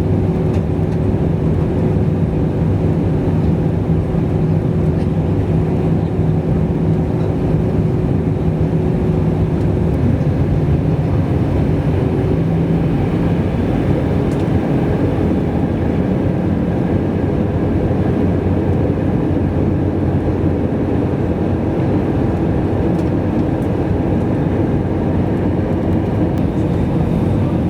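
Cabin noise of an Airbus A320-214 with CFM56 engines: a loud, steady rumble of engines and airflow, with humming tones that change pitch about ten to thirteen seconds in as the engine setting changes.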